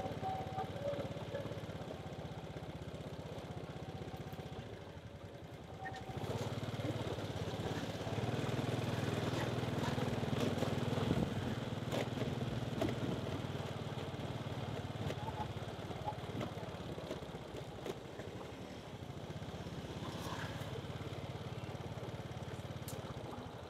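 Motorcycle engine running at low speed, with street noise around it; the engine gets louder for a few seconds in the middle.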